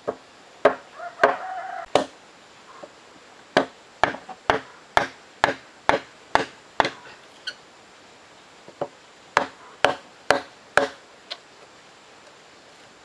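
Wooden mallet striking a chisel, driving it into a timber beam: a run of sharp knocks about two a second, a pause of about two seconds past the middle, then another run.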